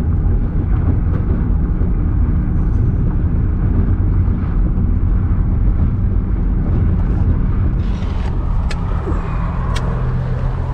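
Car driving, with a steady low rumble of road and engine noise. Near the end come two sharp clicks.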